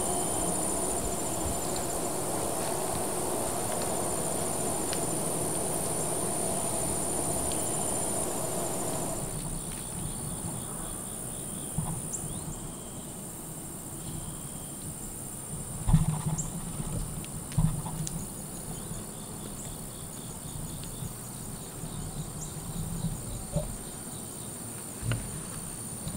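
Evening insect chorus, a steady high-pitched drone, with a lower hum under it that cuts off about a third of the way in. In the quieter second half come scattered rustles and a few sharp knocks, the loudest about two-thirds of the way through.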